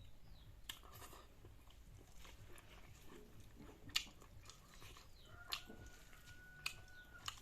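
A person chewing a mouthful of kholar beans with perilla-seed chutney close to the microphone, with several sharp mouth clicks and smacks spread through the chewing. A faint steady high tone sounds for about two seconds near the end.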